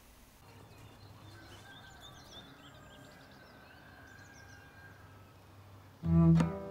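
Faint ambience with small birds chirping and a low steady hum. About six seconds in, plucked-string music starts loudly.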